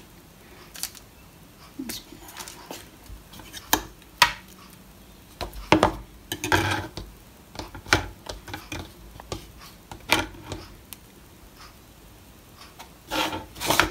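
Metal fork clinking and scraping against a bowl as a tuna ball is turned in beaten egg: irregular taps and clicks with quiet gaps between them.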